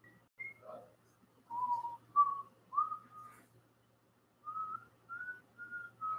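A man whistling a simple tune to himself through pursed lips: a string of short notes moving up and down, with a pause of about a second in the middle.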